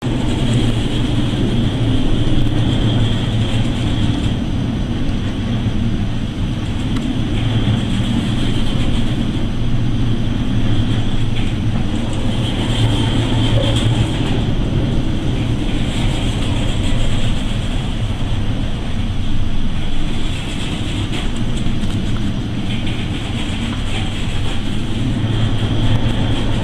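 Steady low drone of an anchor handling tug supply vessel's engines and machinery, with rushing wind and sea noise that swells and eases every few seconds.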